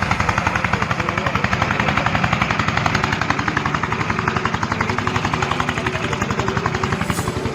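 An engine running close up, with a rapid, even thudding of about ten pulses a second.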